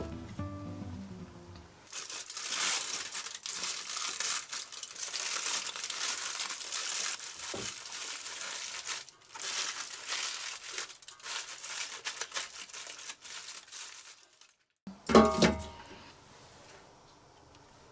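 Crinkling and crumpling, a dense crackle that runs from about two seconds in until shortly before a short burst of background music near the end.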